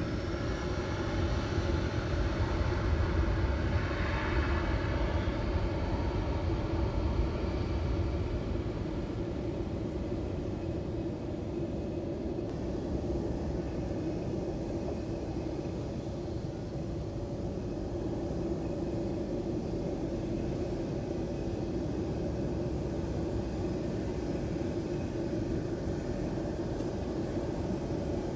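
Business jet's turbofan engines running with a steady whine over a low rumble. They are louder for the first several seconds, then settle to an even hum.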